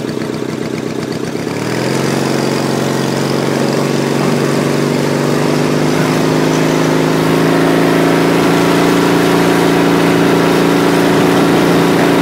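Go-kart's 18 hp Briggs & Stratton engine, heard from on board, rising in pitch as the kart accelerates about a second and a half in, then running steadily at speed with the pitch creeping slightly higher.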